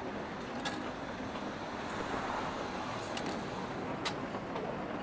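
Rain ambience: a steady hiss of falling rain over a muffled cafe background, with three short, sharp clicks.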